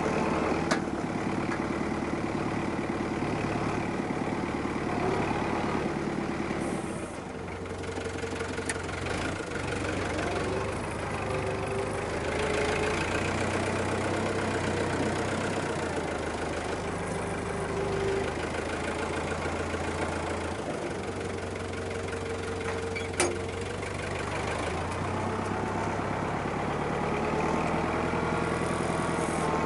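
Farm tractor's diesel engine running, its speed rising and falling now and then as it works. There are two sharp knocks, one near the start and one about three-quarters of the way through.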